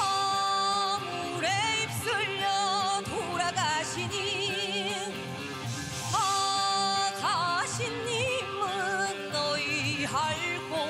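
A female Korean pansori singer sings long held notes with wide vibrato and sliding ornaments, over backing music in a fusion-gugak arrangement.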